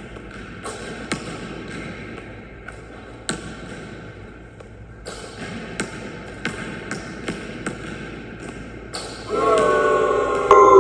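Basketball bouncing on a hardwood sports-hall floor, a run of sharp, irregularly spaced bounces that echo in the hall. Near the end a louder pitched sound lasting about a second and a half comes in.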